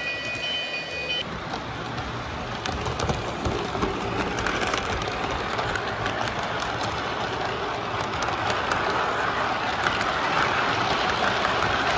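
Lionel model train rolling along its track: a steady rushing of wheels on rail with many small clicks, growing louder as it comes closer. A bell stops ringing about a second in.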